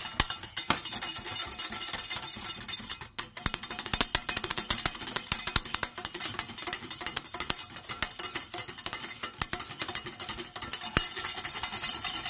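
Wire whisk beating egg yolks fast in a stainless steel saucepan, a rapid, continuous rattle of clicks and scrapes against the metal, with a brief break about three seconds in. The yolks are being whisked over gentle heat into a sabayon.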